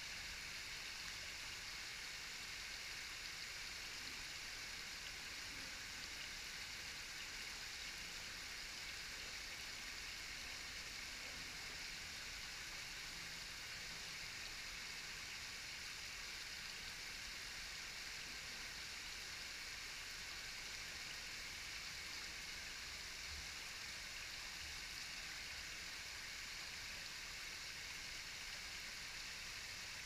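Tall, narrow waterfall: falling and splashing water making a steady, even hiss.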